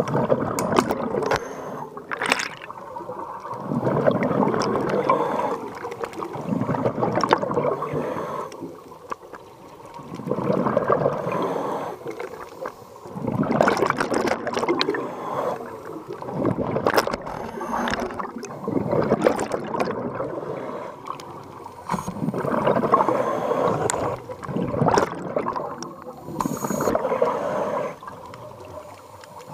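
Scuba diver breathing through a regulator underwater: bursts of exhaled bubbles gurgling and crackling about every three seconds, with quieter inhalations between.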